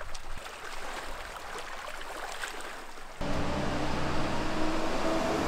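Small waves lapping softly against a rocky lakeshore. About three seconds in, it cuts abruptly to a louder, steady engine hum.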